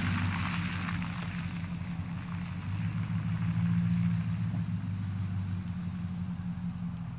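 Chevrolet Silverado pickup carrying a Meyer snowplow driving away: a steady low engine drone with tyre hiss on the wet road that fades as it pulls off. The engine swells briefly about three seconds in, then dies away.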